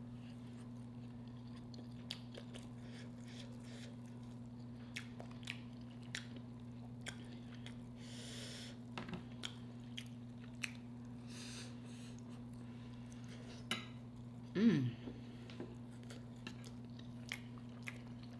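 Close-miked chewing of soft red snapper flesh and cabbage, with wet mouth clicks and lip smacks and now and then a light tap of the fork, over a steady low electrical hum. About three quarters through, a short hummed "mm" rises and falls in pitch.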